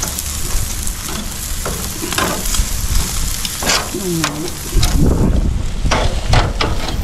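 Split duck heads sizzling on the grates of a barbecue grill, with metal tongs clicking and scraping against the grate as the pieces are turned.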